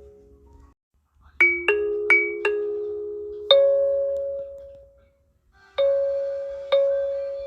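Kalimba playing a short chime tune copied from a sound effect, each note plucked and left to ring out. Five quick notes come about a second and a half in, then a pause, then two more notes near the end.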